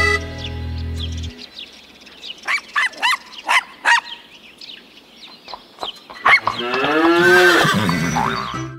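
Cartoon farm animal sounds: a few short squeaky chirps, a sharp click, then a long cartoon cow moo near the end, bending in pitch. The tail of a children's song fades out in the first second.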